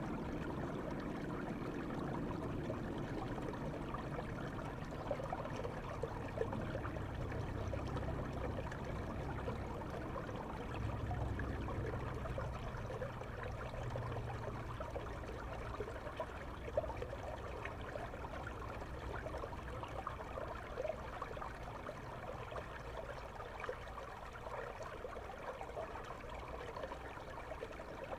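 Shallow, clear river water flowing, heard muffled through a GoPro microphone held underwater: a steady wash with a low rumble and fine crackling. The rumble eases about halfway through.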